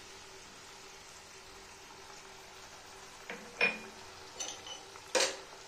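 A few sharp clinks and knocks of kitchen dishes and utensils beside the pan, starting about three seconds in, the loudest near the end, over a low steady hum from the stove area.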